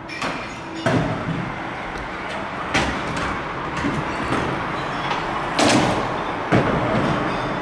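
Freestyle scooter wheels rolling over concrete, with sharp clacks and thuds as the scooter hits the ground and obstacles: about a second in, near three seconds, and twice between five and a half and seven seconds.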